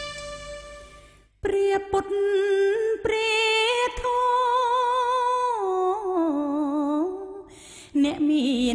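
A woman's voice singing unaccompanied: long drawn-out notes with vibrato, held high and then stepping down lower, with a short break near the end. A guitar-backed music track fades out in the first second before the voice comes in.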